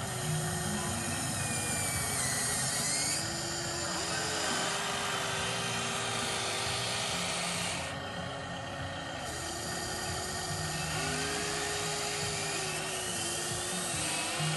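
Huina radio-controlled excavator's small electric motors whining as the boom, arm and turntable move, the pitch bending up and down with each movement and rising in a few short glides.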